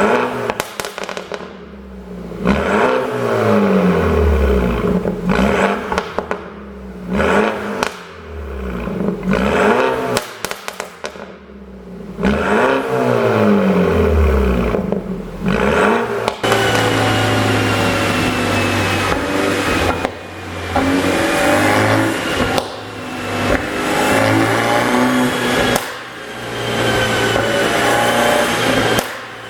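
BMW F30 320i's turbocharged four-cylinder engine revved in repeated blips, each rise and fall followed by popping and crackling from the exhaust as the revs drop, the sound of a pop-and-crackle tune. About halfway it changes to steadier engine running with slowly rising and falling pitch.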